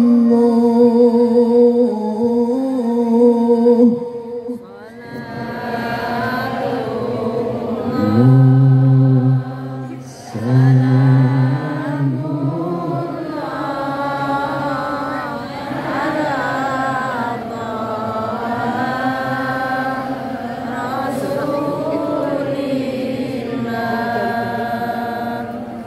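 A male qari's voice through a PA system, holding long ornamented sholawat notes. From about five seconds in, group voices chant the sholawat together.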